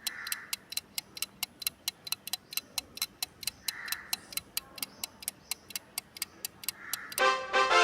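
Clock-ticking countdown-timer sound effect, sharp even ticks at about four a second. Near the end a loud, steady ringing tone sets in, marking the end of the countdown.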